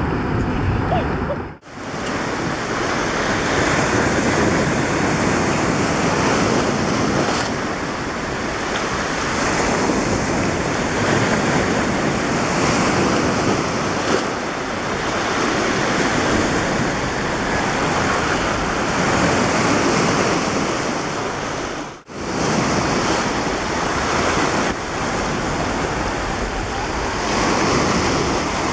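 Sea surf breaking and washing on the shore, with wind buffeting the microphone, a steady loud rush. The sound cuts out abruptly twice, near the start and about two-thirds of the way through, at edits in the recording.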